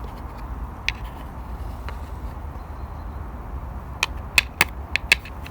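Small parts of a disassembled car heater blower motor being handled: a few sharp clicks and light knocks, two spaced out early and a quick run of them about four seconds in, over a steady low hum.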